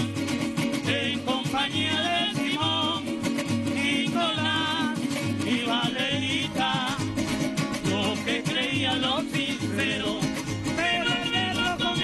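Golpe tocuyano played live: men's voices singing over strummed cuatros and guitar, with a steady beat on a barrel drum (tambora).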